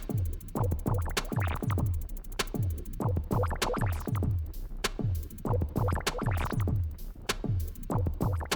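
Background electronic music with a steady drum-machine beat and deep bass notes.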